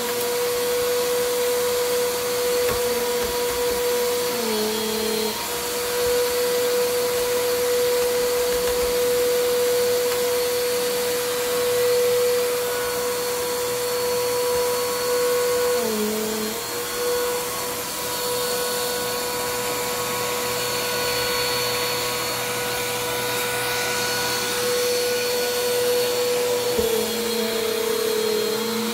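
Bissell PowerForce Compact Turbo upright vacuum's 6.2-amp motor running on a test after a service, with a steady high whine over a rush of air. The whine dips briefly in pitch about five seconds in, around sixteen seconds, and near the end as the vacuum is pushed over carpet.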